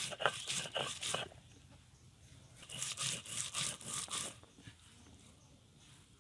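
Repeated short scraping or crunching strokes, about three a second, in two runs with a pause of about a second and a half between them.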